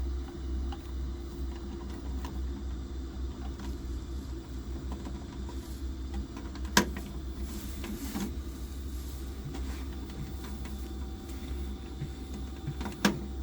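Biasi gas boiler running with a steady low hum, with two sharp clicks, one about halfway through and one near the end.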